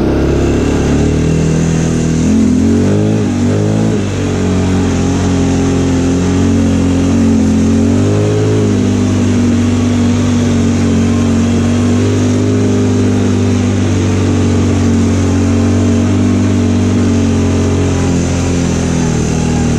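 Linhai 300 ATV engine running under way, heard from the rider's seat. Its pitch rises and falls briefly around three seconds in and again around eight seconds, then holds steady.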